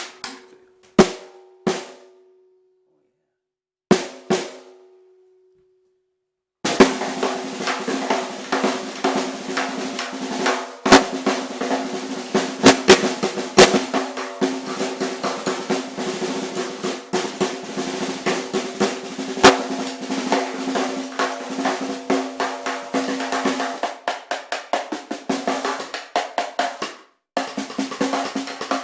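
Ludwig Black Beauty 5x14 hand-hammered brass snare drum struck a few single times with a ringing tone, then played continuously with fast rolls and accented hits from about seven seconds in, with a brief break near the end. The drum sounds loud, with its bottom head tuned up tight for snare-wire response.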